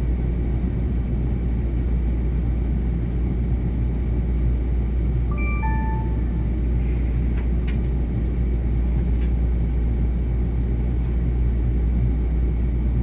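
Steady low rumble of a Tze-Chiang express train, heard from inside the carriage. About five and a half seconds in, a short four-note chime sounds, and a few light clicks follow.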